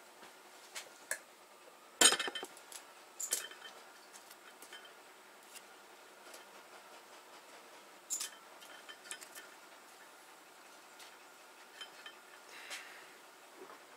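Metal-on-metal clinks and ticks from a valve spring compressor and valve spring retainers and keepers being worked on an aluminium 12-valve VR6 cylinder head. One sharp, loud clink comes about two seconds in, more clinks about a second later and again near eight seconds in, with lighter ticks between.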